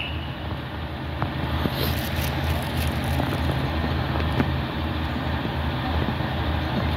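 Class 143 Pacer diesel multiple unit's engine running with a steady low drone, with a few faint high clicks about two seconds in.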